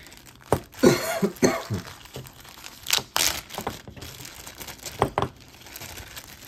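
Costume jewelry and its packaging being handled: several sharp clicks and clinks with rustling, and a short cough about a second in.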